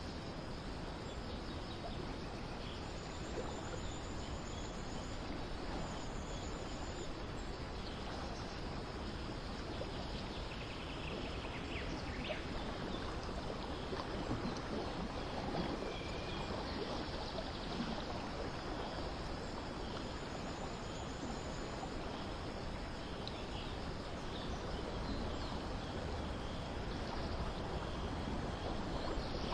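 Steady outdoor ambience of continuous running-water noise, with a few faint high bird chirps now and then.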